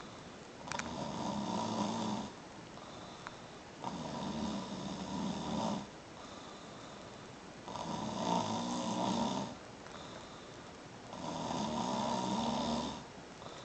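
A man asleep, snoring steadily: four snores, each about two seconds long, coming every three to four seconds.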